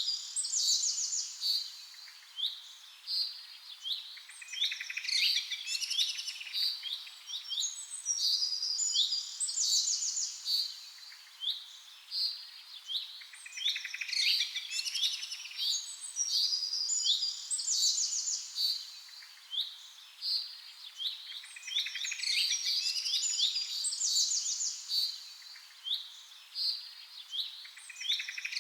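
Songbirds singing: overlapping chirping and fast trilled phrases, a fresh burst of song every few seconds over a faint steady hiss.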